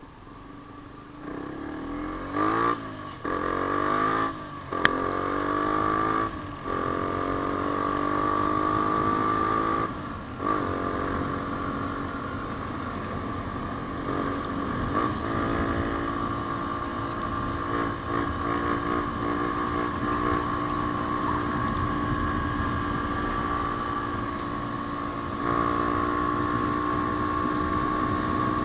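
Yamaha Sniper 150's single-cylinder four-stroke engine through an aftermarket JVT exhaust, pulling away and accelerating through the gears: the pitch climbs, breaks briefly at each of several shifts, then climbs again. It then settles into a steady cruise, with a sharp click about five seconds in.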